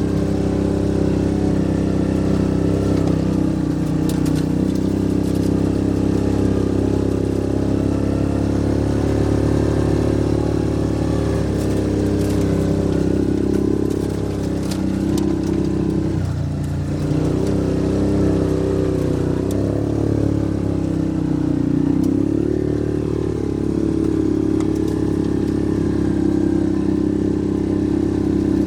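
Yamaha Rhino side-by-side's single-cylinder engine running steadily under way, its pitch dipping briefly as the throttle eases about halfway through and again later.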